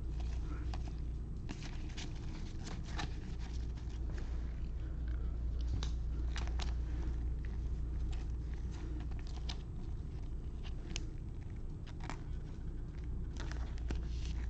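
Trading cards and pack wrappers being handled: scattered light clicks and crinkles over a steady low hum.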